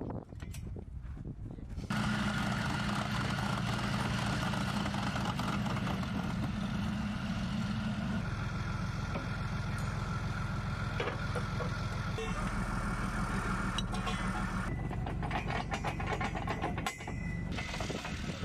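Heavy armoured vehicle's diesel engine running steadily, its tone shifting a few times and cutting off shortly before the end.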